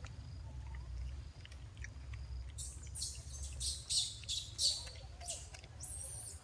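A quick run of short, high-pitched chirps, six or so from about two and a half seconds in, then one more near the end, over a low steady rumble.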